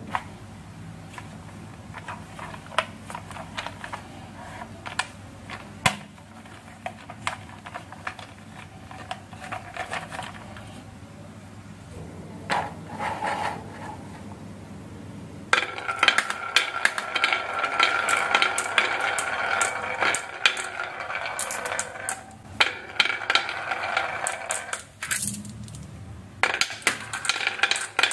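An orange plastic toy truck handled and pushed over a wooden tabletop, with scattered plastic clicks and knocks. About halfway through, many glass marbles start rolling along a wavy wooden marble slope and clicking against each other and the wood, in a dense run of clicks that lasts about ten seconds, with more clicks near the end.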